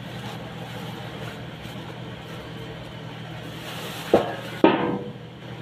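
Steady low machine hum, with two loud knocks about half a second apart near the end.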